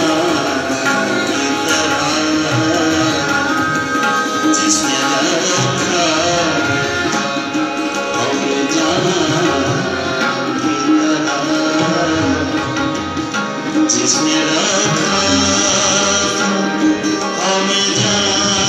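Ghazal music played on harmonium, tabla and acoustic guitar, the tabla keeping a steady rhythm under the harmonium's held notes.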